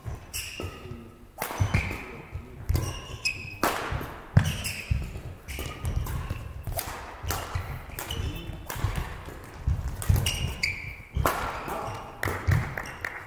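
Badminton rally: sharp cracks of rackets striking the shuttlecock about once a second, between short high squeaks of shoe soles and thudding footsteps on the court floor.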